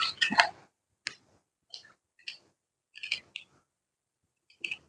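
Computer parts being handled: a quick run of clicks and taps, then single sharp clicks every half second to a second.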